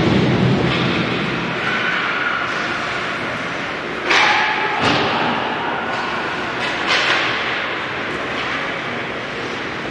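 Ice hockey game sounds: a steady rink noise with three sharp knocks of puck and sticks, about four, five and seven seconds in, the first followed by a short ring.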